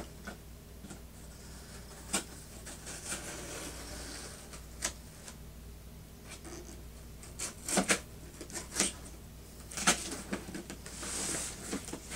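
Cardboard shipping box being cut open with an X-Acto craft knife and handled: scattered clicks and taps, with a stretch of scratchy rubbing near the end.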